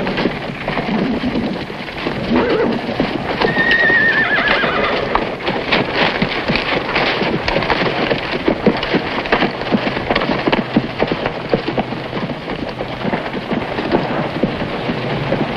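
A horse whinnies about three and a half seconds in: a high call that falls in pitch as it trembles. Horses' hooves clip-clop throughout, thickest from about five seconds on.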